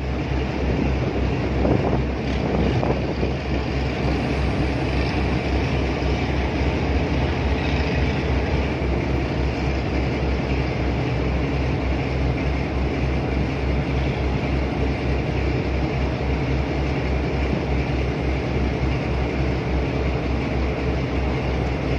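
A tug boat's diesel engine running steadily while it tows a loaded barge, a continuous deep throb with rushing noise over it, heard from the tug's aft deck.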